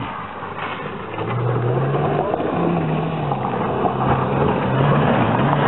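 Daihatsu Terios small 4x4 engine pulling up a steep rocky dirt climb off-road, its revs rising and falling. It grows louder about a second in as the vehicle comes closer.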